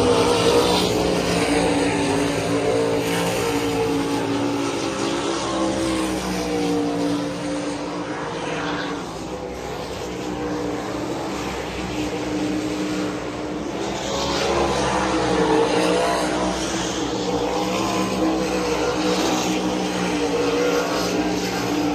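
Several 410 sprint car V8 engines running on the dirt oval during hot laps: a continuous layered engine drone that dips a little in the middle and swells again.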